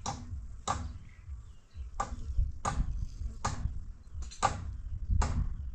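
A series of sharp knocks or strikes, about one every three-quarters of a second, in a steady rhythm over a low rumble.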